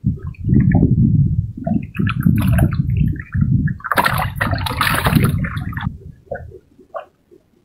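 Small fish flapping and splashing in shallow water on the floor of a wooden boat, loudest from about four to six seconds in, over a low rumble.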